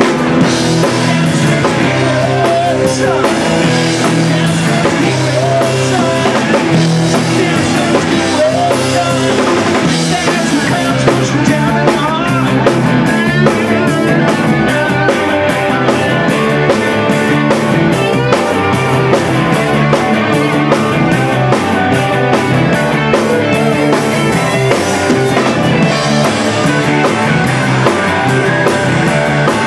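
Live rock band playing loud: electric guitars over a drum kit, with a steady cymbal beat coming in about eleven seconds in.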